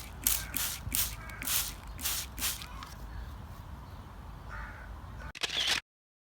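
Water misted from a hand spray bottle in a series of short hissing squirts, about two a second at first, then fainter. A crow caws in the background, and the sound cuts off suddenly near the end.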